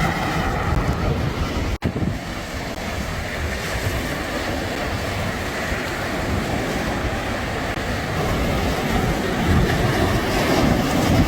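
Wind buffeting the microphone over wind-driven waves and chop on open water. The sound cuts out for an instant about two seconds in.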